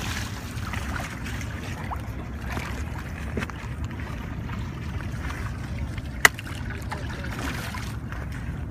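Steady rush of churning dam tailwater washing against riprap rocks, heavy in low rumble, with one sharp click about six seconds in.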